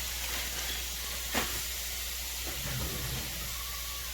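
Diced hash brown potatoes sizzling in hot olive oil in a frying pan, a steady hiss, with one sharp tap about a second and a half in.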